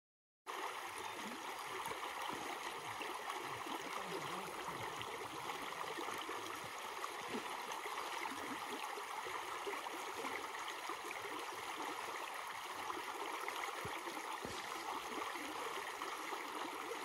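Shallow mountain stream running over a pebble riffle: a steady rush of water that cuts in about half a second in.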